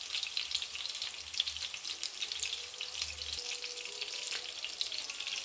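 Herb-flecked mince kebabs shallow-frying in hot oil in a nonstick frying pan: a steady, dense crackling sizzle.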